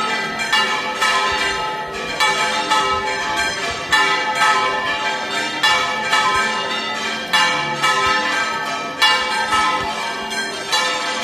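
Bronze church tower bells swinging and ringing together, strikes coming about twice a second, each ring running on into the next.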